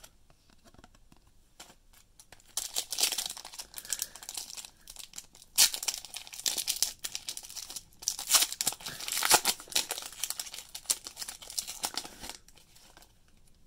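Foil wrapper of a trading-card pack being torn open and crinkled by hand, in a string of ripping and rustling sounds. It starts a couple of seconds in and stops near the end.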